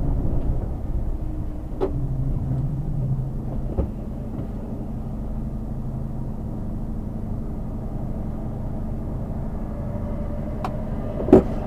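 Mercedes-Benz Actros tractor unit's 12.8-litre diesel running at low revs, heard from inside the cab as a steady low hum. A few faint ticks, and one sharp click near the end.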